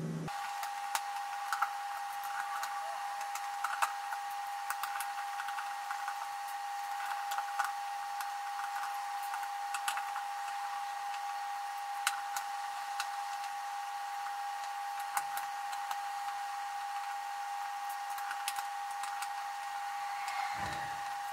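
A steady high whine with light clicks and taps scattered through it, from small plastic and metal parts of a drone frame being handled and unscrewed.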